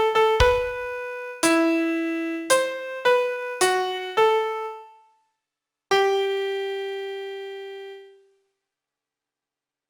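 Piano playing a bare melody one note at a time, about seven notes, then after a short pause one last note that rings out and fades away.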